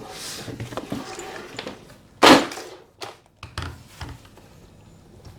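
Handling noise as the keyboard is unpacked: rustling and light knocks of packaging and parts, with one loud short burst about two seconds in.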